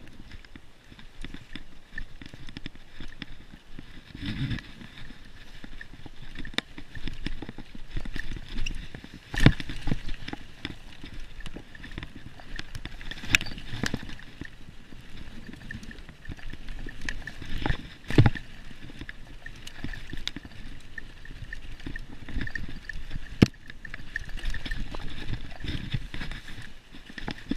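Mountain bike rolling fast over a leaf-covered dirt trail: a steady rush of tyre noise with constant rattling and clicking from the bike, and sharp knocks as it hits bumps, four of them standing out.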